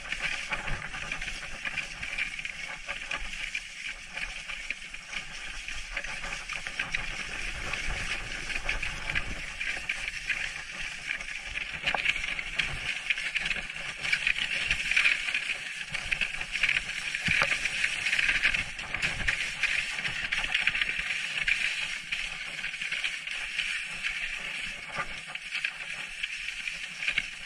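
Sled runners hissing and scraping steadily over snow as a dog-drawn sled glides along the trail, with a fine crackle throughout.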